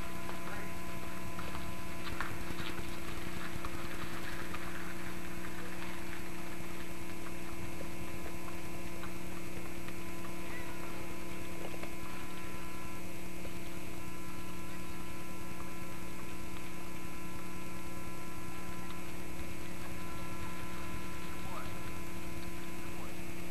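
Steady electrical hum on the recording's sound track, two low tones held without change, with a few faint clicks.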